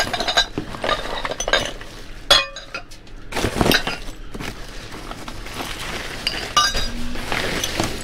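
Hard objects clinking and knocking together as someone rummages through a dumpster's contents: a rapid, irregular series of clinks, some with a short ring, the sharpest about two seconds in.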